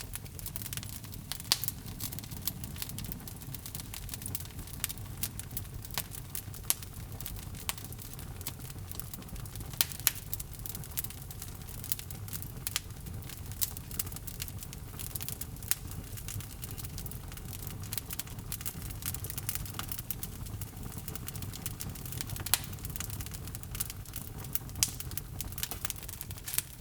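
Wood fire burning in a fireplace: a steady low rumble of flames with irregular sharp crackles and pops from the logs, a few much louder than the rest.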